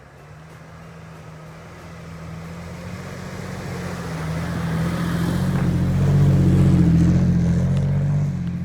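An off-road 4x4's engine running, growing steadily louder to a peak about seven seconds in, then easing off.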